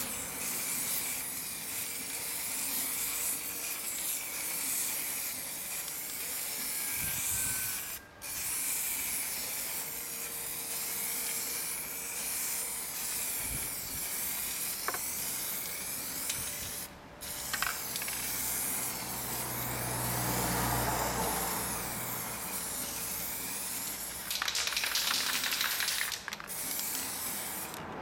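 Aerosol primer spray can hissing steadily as a coat of primer is sprayed over a steel wheel rim, with brief breaks in the spray about 8 and 17 seconds in.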